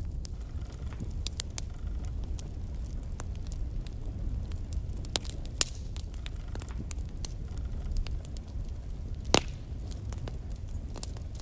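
Wood fire burning in a fireplace, with a steady low rumble and irregular crackles and pops from the logs; one sharp pop about nine seconds in is the loudest.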